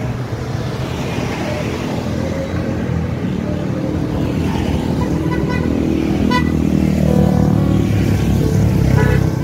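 Motorcycle engines running in street traffic while riding along, the engine note growing louder toward the end. A few short beeps sound about five to six and a half seconds in.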